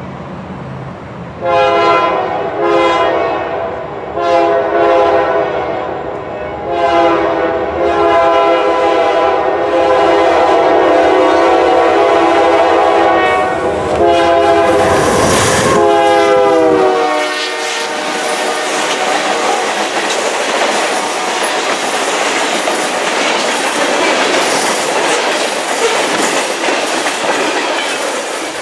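Union Pacific diesel locomotive sounding its multi-note air horn in several blasts, the last one held long and dropping in pitch as the locomotive passes close by. Then the freight cars roll past with steady wheel clatter on the rails.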